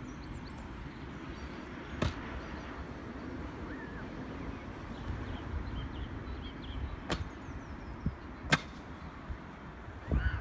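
Three sharp clacks of a kick scooter on concrete, about 2, 7 and 8.5 seconds in, over a steady rumble of wind on the microphone, with faint bird chirps.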